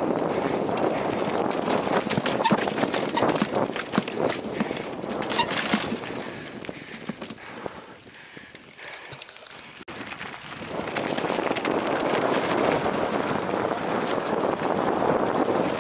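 Mountain bike riding down a dirt and gravel trail, heard from a helmet camera: tyres crunching over the ground and the bike rattling, with frequent sharp knocks. It thins out and quiets about halfway, then a steady rushing rolling noise builds again.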